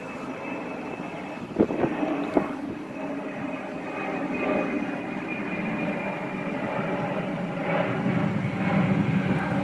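Steady outdoor rumble of gusting wind with a faint vehicle-like hum, swelling and easing, and two light knocks in the first few seconds.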